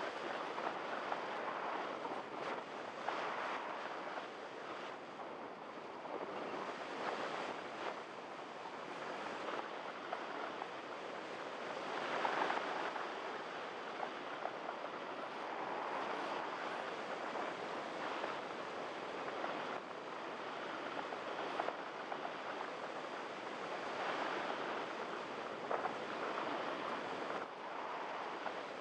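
Wind rushing over the microphone of a camera riding on a Multiplex EasyStar RC model plane in flight. It is a steady hiss that swells and eases every few seconds.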